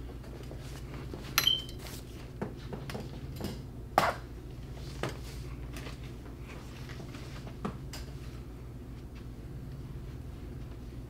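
Scattered light clicks, knocks and a brief clink of household objects being handled, over a steady low hum; the sharpest knocks come about one and a half and four seconds in.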